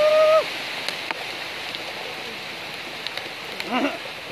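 A puppy gives a short, level whine right at the start and a brief yelp nearly four seconds in, over a steady hiss.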